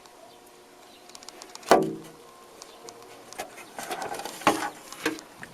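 Handling knocks and rattles as the Onkyo PL-25F turntable's top cover is lifted off, with one loud, ringing knock about two seconds in and a cluster of smaller clicks and rattles near the end.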